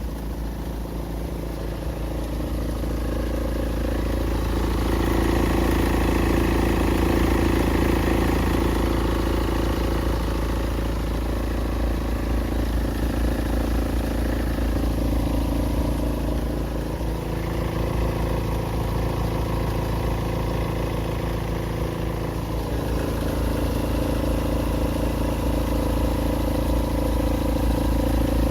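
BMW 320d four-cylinder diesel engine running steadily, with a noise that the owner puts down to a non-genuine crankshaft pulley vibration damper.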